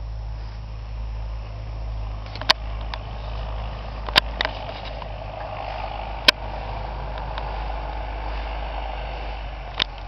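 Wind buffeting the microphone as a steady low rumble, with a few sharp clicks about two and a half, four and six seconds in and a quick run of clicks near the end.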